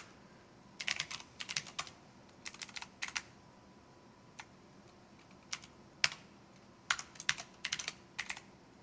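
Typing on a computer keyboard: short runs of keystrokes with pauses between them, and a few single key presses in the middle.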